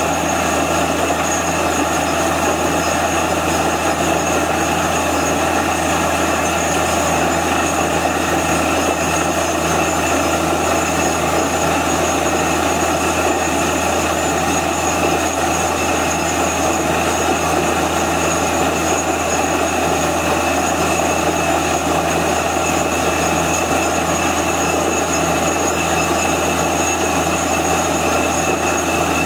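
Truck-mounted borewell drilling rig running steadily as it drills, with compressed air blowing wet rock cuttings out of the borehole. The machine sound is loud and unbroken, with a deep hum beneath a hissing rush.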